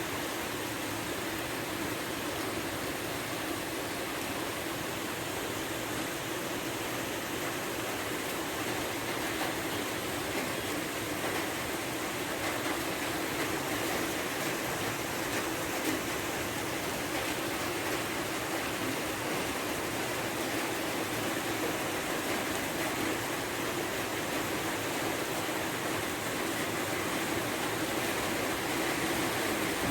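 Heavy rain falling steadily: a continuous, even hiss of rainfall.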